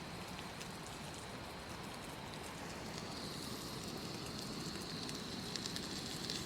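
Floured surf perch fillets frying in a buttered pan, with a steady sizzle and fine crackling that grows a little louder and brighter about three seconds in.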